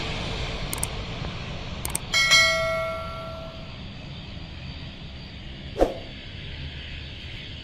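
Boeing 777 airliner's engine noise dying away after landing, with a single bell-like metallic ring about two seconds in and a short thump near the end.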